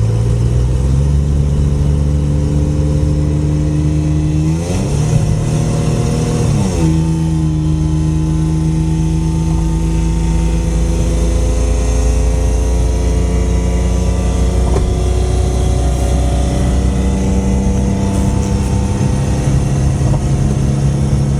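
1999 Ford Mustang's 3.8-litre V6 with a farting exhaust note, pulling under acceleration as its pitch climbs slowly. About five seconds in it revs up sharply and drops back, and the note changes again near the end.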